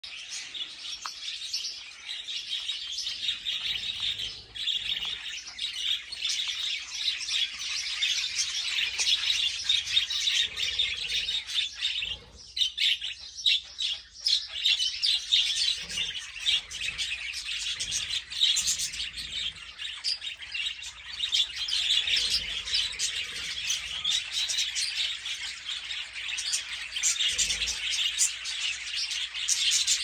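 A flock of budgerigars chattering, with many high chirps overlapping, and a brief lull about twelve seconds in.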